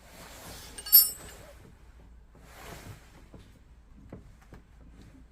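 A single sharp clink of something hard struck or set down, ringing briefly at a high pitch about a second in, between stretches of soft hissing.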